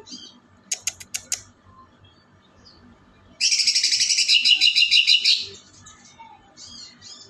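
A songbird singing: a short run of about six quick high notes about a second in, then a loud, fast trill of rapidly repeated high notes lasting about two seconds, followed by a few faint calls.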